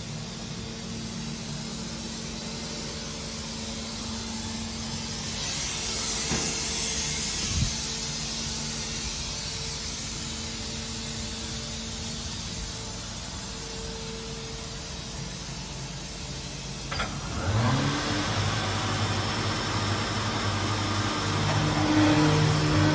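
Steady low workshop hum, then a click about 17 s in as the Balestrini Pico round-tenoning machine's electric motor is switched on and spins up to a steady running hum. A second motor joins near the end, and the running gets louder.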